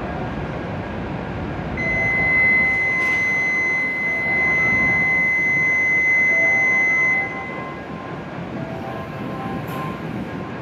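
Shinkansen platform door-closing warning: a steady, piercing electronic beep starts about two seconds in and holds for about five seconds, over a repeating pattern of lower chime notes that runs until near the end, with station hum beneath. This signals that the platform gates and train doors are closing just before departure.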